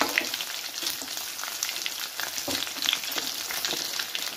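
Egg-and-breadcrumb-coated chicken pieces deep-frying in hot oil in a steel kadai: a steady sizzle dotted with many small crackles and spatter pops.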